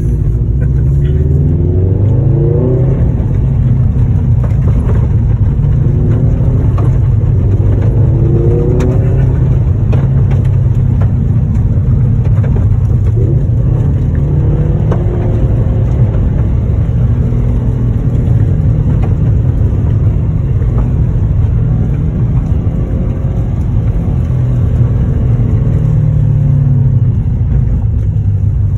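Subaru WRX STI's turbocharged flat-four engine, heard from inside the cabin while driving on a rough dirt road. It pulls up through the revs twice in the first ten seconds, then runs at a steady speed under a constant low rumble.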